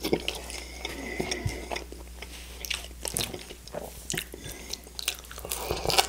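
Close-miked eating of crispy fried chicken wings: crunchy bites and chewing, with many irregular sharp crackles.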